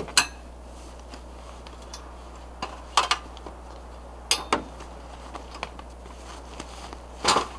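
Several sharp metallic clinks and knocks as camping gear is handled and unfastened on a metal roof rack, the loudest one near the end.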